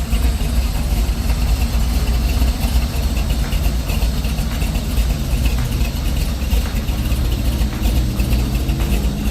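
1976 Chevy K20 pickup's engine idling steadily with a deep low rumble through headers and Flowmaster mufflers. A faint rising tone comes in near the end.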